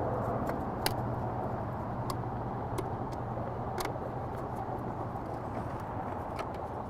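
A few scattered light clicks of hand tools and intake parts as bolts are fastened down, over a steady low hum that slowly fades.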